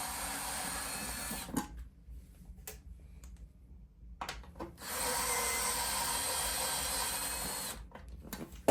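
Small cordless electric screwdriver (SKIL Twist 2.0 4V) backing out the Phillips screws of a water heater element cover. It runs steadily for a second and a half, stops, then runs again for about three seconds. There are light clicks in the pause and a sharp click near the end.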